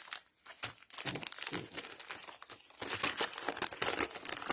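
Packaging crinkling while a set of piston rings is unwrapped by hand: sparse crackles at first, then almost continuous crinkling from about a second in.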